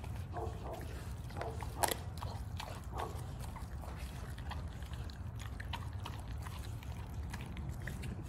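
Pit bull gnawing and chewing a whole raw chicken: irregular wet crunches and clicks, with one sharper crack just under two seconds in.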